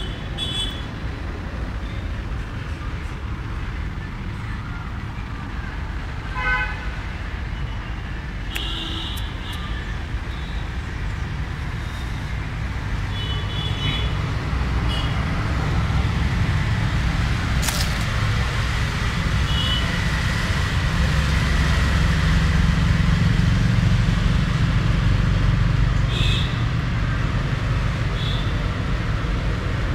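Road traffic rumbling steadily, swelling louder through the middle as vehicles pass, with a few short high toots now and then.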